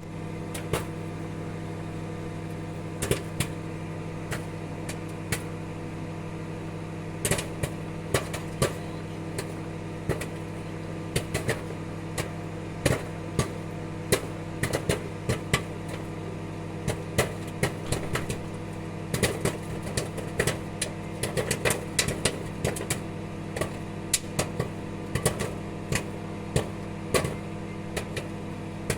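Popcorn popping inside a running microwave oven: the oven's steady hum throughout, with sharp pops that start sparse and come thicker and faster from about a quarter of the way in.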